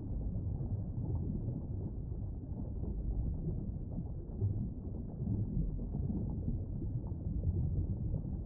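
Low, steady rumble with no clear tones: a dark ambient drone, heaviest in the deep bass, swelling slightly now and then.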